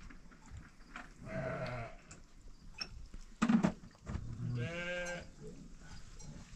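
Bleating livestock: two bleats, one about a second and a half in and a longer one about five seconds in, with a single sharp knock between them.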